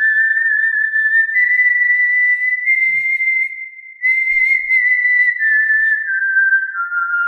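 Artistic whistling by mouth: a single pure melodic line that climbs in small steps over the first few seconds, then steps slowly back down.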